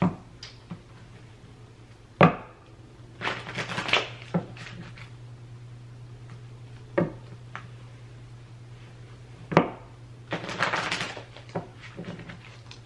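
A tarot deck being shuffled by hand: two rustling flurries of card edges as the halves are shuffled together, and sharp single knocks as the deck is squared against the table.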